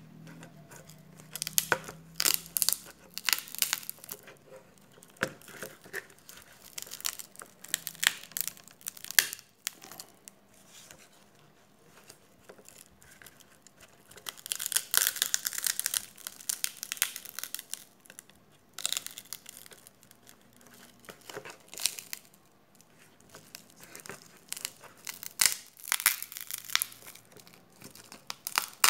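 Shattered screen glass of a Samsung Galaxy J3 (2016) crackling and snapping as it is peeled by hand off the phone's frame, with its adhesive tearing. The crackles come irregularly, thickest about halfway through and again near the end.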